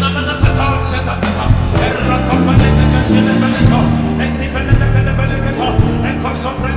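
Live church band music with a steady beat, bass and keyboard chords and drums, loud and continuous.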